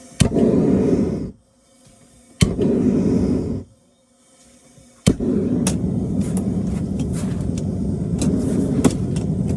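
Gas forge burner being lit: a click and a rush of burning gas that dies after about a second, the same again, then on the third click the burner catches and keeps running steadily. It is set on low to cure a freshly laid refractory cement lining.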